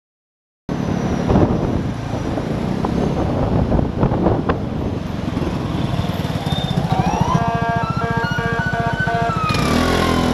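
Vespa GTS 250's single-cylinder engine running with road and wind noise as the scooter slows almost to a stop, its firing pulses settling into a steady idle beat. About halfway through, pitched tones that glide and step up and down in pitch sound over it. The sound starts abruptly, just under a second in.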